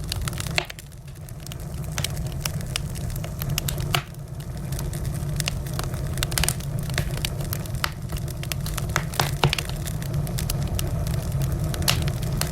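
Wood fire crackling: frequent sharp pops and snaps over a steady low rumble of burning flames.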